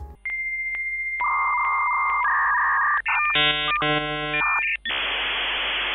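Dial-up modem handshake sound effect. A steady high answer tone is broken by regular clicks, then lower steady tones sound, then a short burst of chord-like beeps, and a hiss of static takes over for the last second.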